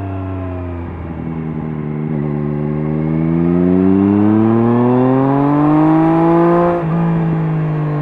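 Triumph Street Triple S inline three-cylinder engine through an SC-Project SC1-R slip-on exhaust with its dB killer fitted, rolling off briefly and then accelerating, its pitch rising steadily for several seconds. About seven seconds in an upshift drops the revs, and the engine pulls on in the next gear.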